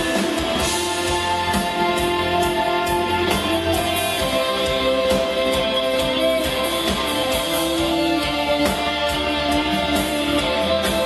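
Gothic rock band playing live, with electric guitars holding sustained chords over a steady drum beat.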